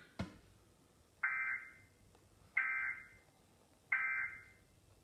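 Emergency Alert System end-of-message code: three short, identical bursts of buzzy digital data tone, evenly spaced a little over a second apart. A sharp click comes just before them.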